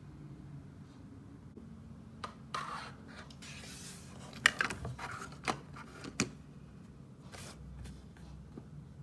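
Light handling noises: two brief rustles, then a few sharp clicks and a short hiss, over a steady low hum.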